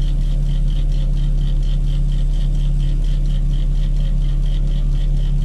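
Large mobile crane's diesel engine running steadily with a deep hum, overlaid by a fast high-pitched ticking of about four or five beats a second.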